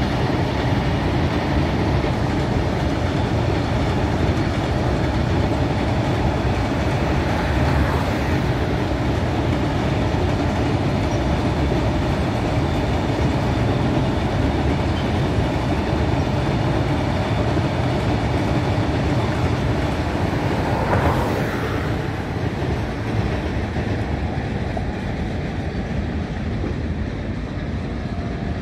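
Train running across a steel truss railway bridge: a steady rumble and clatter of wheels and coaches on the spans, easing a little about three-quarters of the way through.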